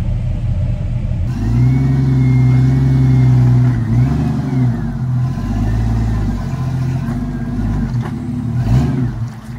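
Jeep Cherokee XJ engine revving in several long pulls, its pitch rising, holding and falling, as the lifted Jeep crawls up and over concrete steps under load.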